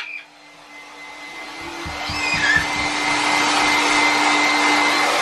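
Hair dryer blowing steadily with a low hum, used to dry a pet bird after its shower. It cuts out with a click at the start, then its rush of air builds back up over the next couple of seconds and runs steady.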